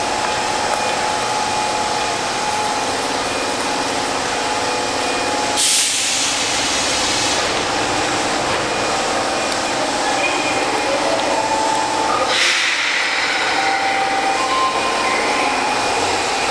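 A subway train standing at an underground platform, its running noise a steady hum and rumble in the echoing station. Twice there is a sudden sharp hiss of released air, typical of the train's air brakes or pneumatic doors.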